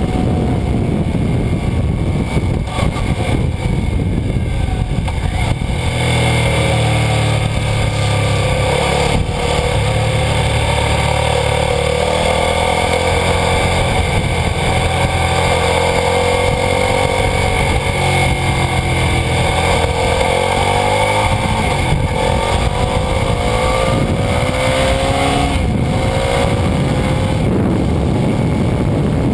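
Suzuki SV650's 645 cc V-twin engine under way, with heavy wind and road noise on a camera mounted by the rear wheel. The engine note is buried in the wind for the first few seconds, then comes through clearly, holding steady and rising in pitch several times in the second half as the bike accelerates.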